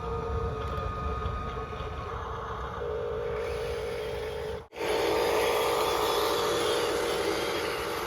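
Small electric motors and gearboxes of RC construction models whirring steadily with a humming whine. It cuts off abruptly a little past halfway and resumes louder at once.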